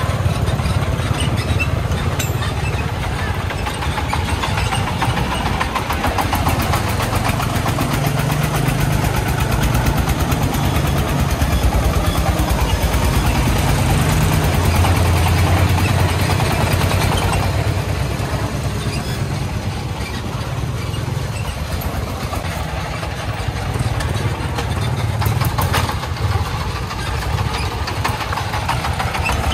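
Công nông truck's single-cylinder diesel engine running with a rapid, steady chug, a little louder in the middle stretch.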